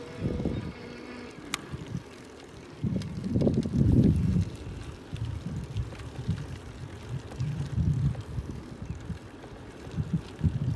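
Wind buffeting the microphone in uneven low gusts while riding a bicycle, with one sharp click about one and a half seconds in.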